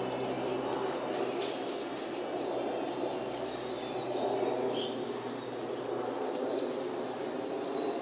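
Steady insect chorus: several high, thin tones held level throughout, over an even background hiss.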